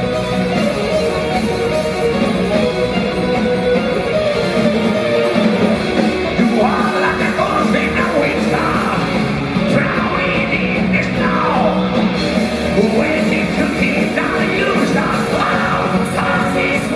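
Heavy metal band playing live and loud, with electric guitars, bass, keyboards and drums, heard from within the audience. A singer's high vocal comes in about six or seven seconds in and carries on through the rest.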